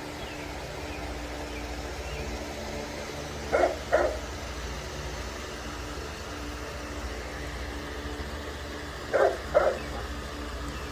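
A dog barks twice in quick succession about three and a half seconds in, and twice again near the end, over a steady low hum.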